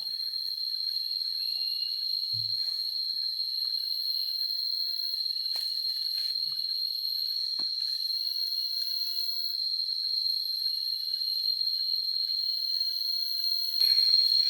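Insects keeping up a steady, high-pitched continuous trill, with a few faint clicks.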